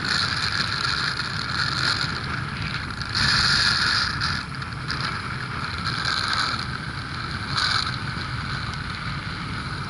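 Ski-Doo Mach Z 1000 SDI two-stroke snowmobile running through deep powder snow, with wind rushing over the microphone. The sound swells and eases several times, loudest about three seconds in.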